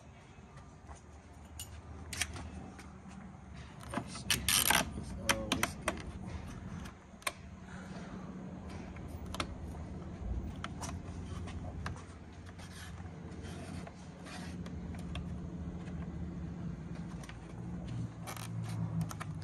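Handling noises as a carbon fiber splitter is fitted and clamped against a plastic bumper: scattered clicks, knocks and rubs, with a burst of sharper clicks about four to five seconds in. A steady low hum runs underneath.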